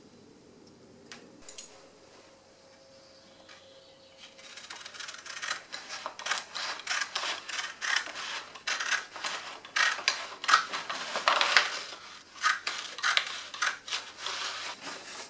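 Stained-glass pattern shears cutting through a brown-paper cartoon: a quick run of crisp snips, starting about four seconds in, as the double-bladed shears take out a thin paper strip that leaves room for the lead.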